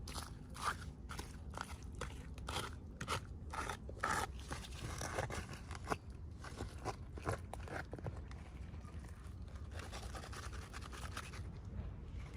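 Toy packaging crinkling and crackling as it is handled and opened by hand, in a quick, irregular run of crisp rustles that softens after about eight seconds.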